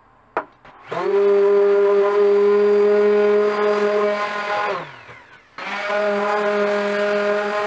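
Electric random orbital sander starting up and running at a steady pitch, then spinning down to a stop about four and a half seconds in and switching back on a second later. A short blip comes just before it first starts.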